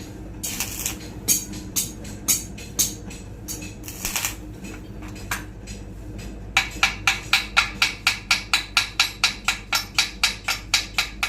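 Hand hammer striking metal, a few scattered blows at first, then from about six and a half seconds in a steady fast run of about four strikes a second, over a low steady hum.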